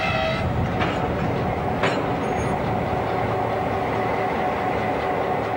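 Montana Rail Link diesel locomotive running steadily as it rolls slowly past with freight cars in tow, a continuous rumble and hum. A couple of sharp clicks from the wheels and track come about one and two seconds in.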